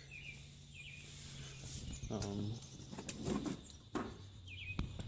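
Small birds chirping in the background in short repeated chirps, near the start and again near the end, with a man's voice briefly in the middle.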